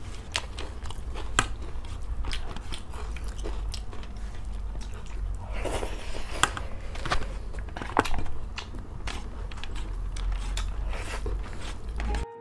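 Close-miked mukbang eating sounds: two people chewing and crunching with repeated sharp mouth clicks as they eat rice, chicken curry and side dishes by hand.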